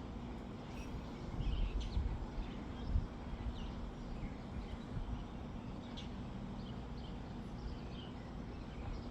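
Outdoor ambience: scattered short bird chirps over a steady low background hum, with a stretch of louder low rumbling about one and a half to three seconds in.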